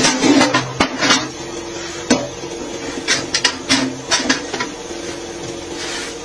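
Concrete block-making machine at work: a steady motor hum under sharp metal clanks and knocks, bunched in the first second and again around the middle, as the mould is filled, pressed and the block pushed out.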